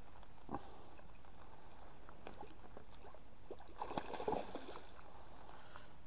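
A hooked barbel, close to the bank, thrashing at the surface in a short burst of splashes about four seconds in. Light knocks and ticks around it.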